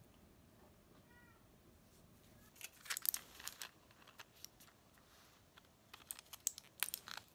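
A cat gives one short, faint meow about a second in. Then comes a crackling run of sharp clicks from a plastic-and-foil blister pack of tablets being handled and pressed, in two bouts, the first the loudest.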